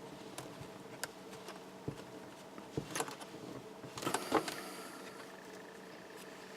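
Scattered small clicks and scrapes of a screwdriver prying at a laptop screen's plastic, with a little cluster of clicks about four seconds in, over a faint steady hum.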